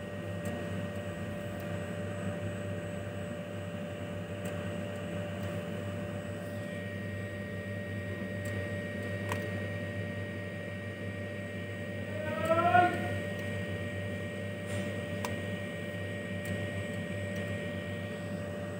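Steady machinery hum with a constant tone over it, a few light clicks, and a brief rising tone about two-thirds of the way through.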